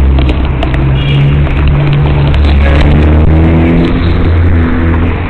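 Steady low rumble of city street traffic, with scattered knocks and rubbing from a hand handling the body-worn camera close to its microphone.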